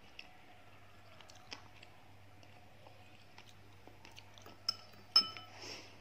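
Fingers peeling the shell off a boiled balut (fertilized duck egg), with small cracks and crackles of eggshell. Near the end come two sharp clinks with a short ring, followed by a brief crunch.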